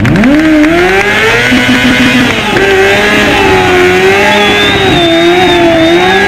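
Sport motorcycle engine revved up sharply at the start and then held at high revs, wavering, while the rear tyre spins in a smoking burnout.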